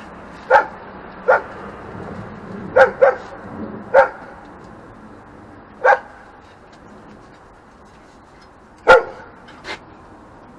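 A dog barking: about eight short single barks at irregular intervals, the loudest a little before the end.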